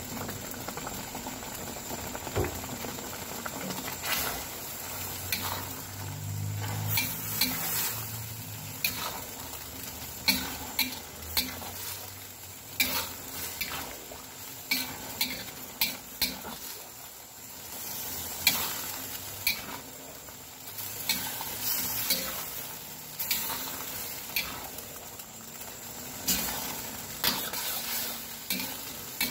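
Fried noodles sizzling in a metal wok while a metal spatula tosses them, scraping and clanking against the pan again and again at an uneven pace.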